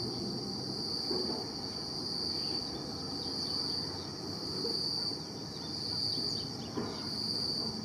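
Steady, high-pitched insect chorus, an unbroken shrill trill, over a low rumbling background noise.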